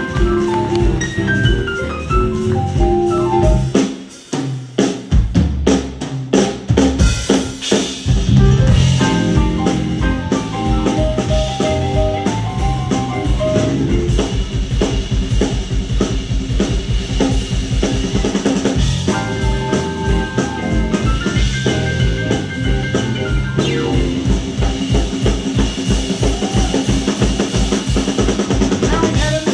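Live jump-blues band playing an instrumental passage with no singing: drum kit, piano, horns and electric guitars. About four seconds in the band drops out for a moment, a few separate drum hits bring it back, and then a steady driving beat runs on.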